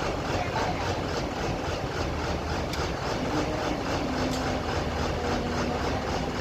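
Diesel engine of a remote-controlled water-well drilling rig running steadily with an even pulsing beat, a faint tone under it shifting slightly in pitch.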